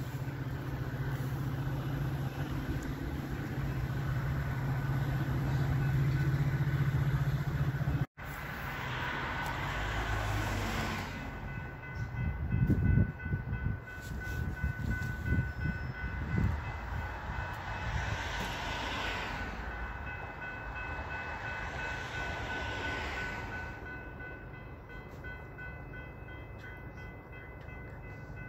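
Metra commuter train with an EMD F40PH diesel locomotive passing at a station: low locomotive rumble, then wheels clattering over rail joints, with its horn sounding. The sound cuts out suddenly about eight seconds in, then the train passes and fades away.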